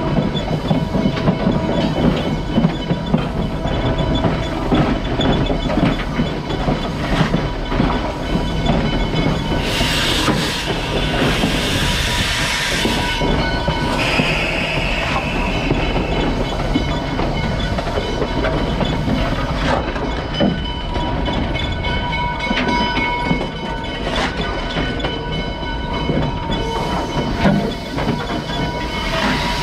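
Pennsylvania Railroad #643, an 0-6-0 steam locomotive, rolling along the track, heard close to its wheels and running gear: a steady rumble of wheels on rail with frequent clicks and clanks. A hiss rises about ten seconds in and fades a few seconds later.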